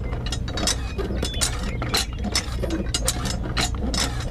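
Small metal and plastic parts of a model tractor's hitch and a toy cultivator clicking and clinking irregularly as they are handled and fitted together, over a steady low hum.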